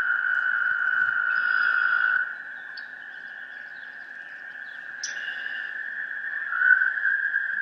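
Field recording of an outdoor animal chorus: a steady, high-pitched calling that drops away about two seconds in and swells back a few seconds later. A short rising chirp sounds near the middle.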